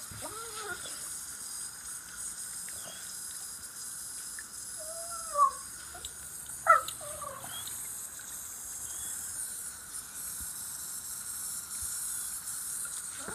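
Steady hiss of a garden hose's fine water jet spraying, with the dog biting at the spray. A dog gives two short, sharp yelps about five and seven seconds in.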